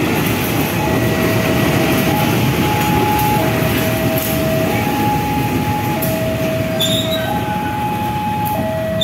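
A level-crossing warning alarm sounds steadily, switching back and forth between a lower and a higher tone about every 1.3 s. Under it, a CC 201 diesel-electric locomotive runs past slowly on shunting duty, its diesel engine and running gear making a loud, steady rumble.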